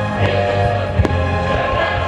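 Loud music from the pyromusical show, with sustained tones, over which fireworks go off as a few sharp bangs, the strongest about a second in.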